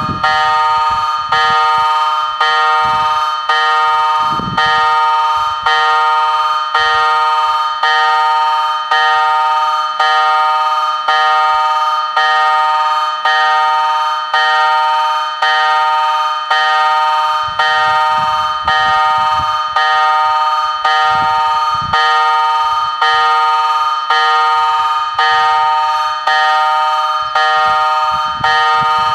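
Level crossing warning bell ringing steadily, a little more than one stroke a second, each ringing note fading before the next. It signals that the crossing is activated for an approaching train.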